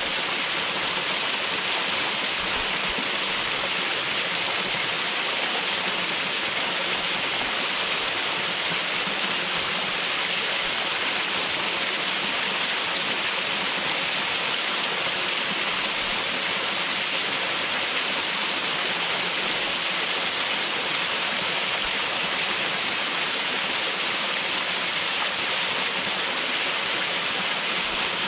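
Waterfall's water rushing and splashing: a steady, even hiss that does not change.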